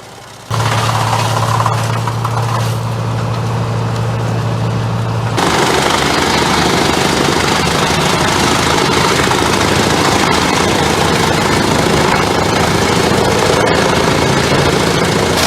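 Heavy machinery of a wood chipper. A steady engine hum starts suddenly about half a second in. About five seconds in it changes abruptly to a louder, rougher noise that runs on.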